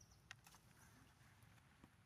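Near silence: faint outdoor background with a couple of soft clicks near the start.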